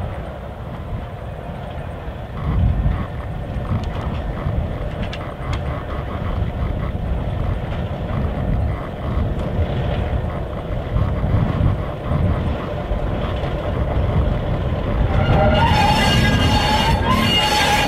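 Clyde-GM G6B (Y-class) diesel locomotive with its EMD 8-567C two-stroke engine running as it rolls slowly along the track, a low uneven rumble. About fifteen seconds in, a high wavering tone joins in and holds to the end.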